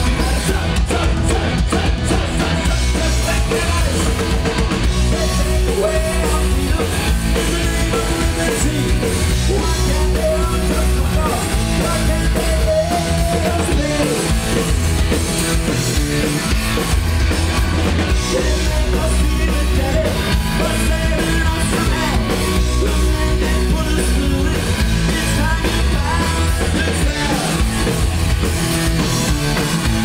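Punk rock band playing live: a singer's vocals over electric guitars, bass and a drum kit, loud and without a break.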